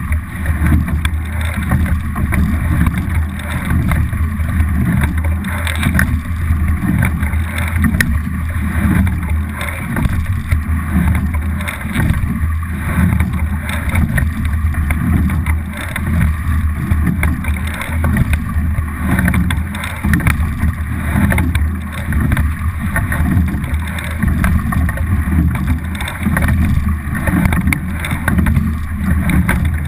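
Water rushing along the hull of a racing double scull under way, with wind buffeting the microphone: a steady rushing noise over a strong low rumble.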